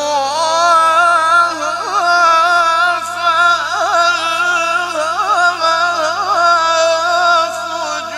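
Male qari chanting Qur'an recitation in the melodic mujawwad style, singing one long, ornamented melismatic line that is held and turns up and down in pitch with hardly a break. A faint steady low hum runs underneath.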